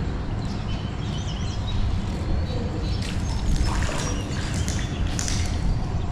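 Small birds chirping and whistling in short scattered calls, over a steady low rumble.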